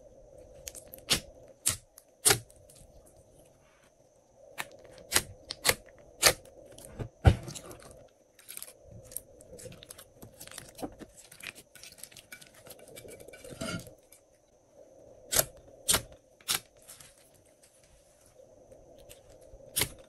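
Glossy slime being stretched, pulled and kneaded by hand, with sticky pops and crackles that come in clusters of sharp clicks.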